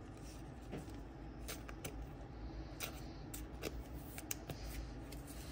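Faint handling of cardboard trading cards: quiet rustling broken by a handful of light, sharp clicks as the cards are moved and flexed between the fingers.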